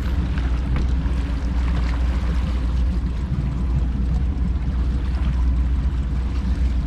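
Motorboat's engine running steadily while trolling: a continuous low rumble with water and wind noise.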